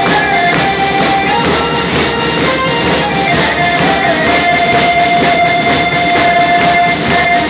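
Music with a steady beat and long held notes.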